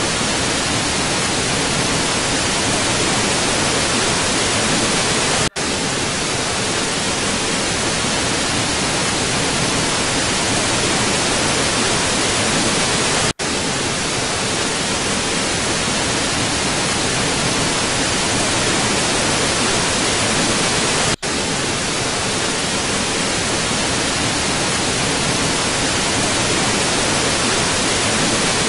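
Loud, steady hiss of static noise laid over the soundtrack to mask it. The hiss drops out for a split second about every eight seconds.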